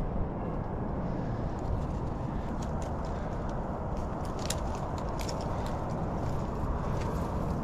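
Steady low rushing noise, with scattered light clicks and crackles of twigs and leaves through the middle as a climber moves through tree branches.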